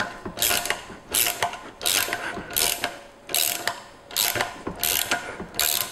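13 mm ratcheting wrench clicking in short bursts about twice a second, with each back-swing, as it winds down the bolt of a valve spring compressor. Each turn compresses a valve spring to expose the valve keepers.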